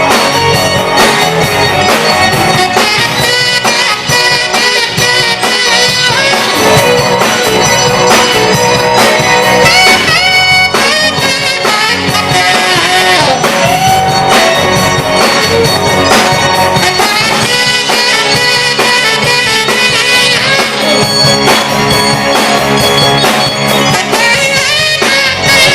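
Live rock band playing an instrumental break with a saxophone lead over the full band.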